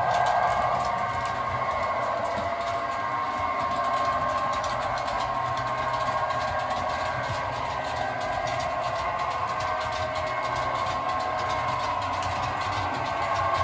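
Model railway trains running on the layout: a steady whine with a low hum that drifts slightly in pitch.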